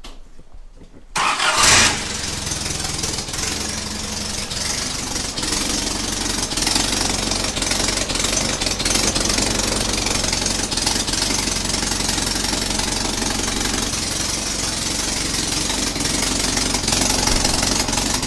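Willys CJ3A's L-134 Go-Devil four-cylinder flathead engine starting about a second in, louder for a moment as it catches, then settling into a steady idle.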